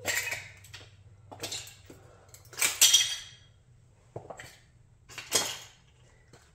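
Chrysler 300B scale model car being crushed under a platform high heel on a concrete floor: about five cracking crunches with clinking of loose metal and plastic pieces, the loudest about three seconds in and another a little after five seconds.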